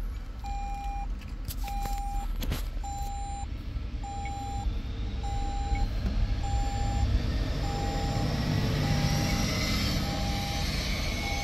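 A steady electronic warning beep: one mid-pitched tone about half a second long, repeating about once every 1.2 seconds, over a low vehicle rumble. From about four seconds in a rising hiss builds and grows louder toward the end.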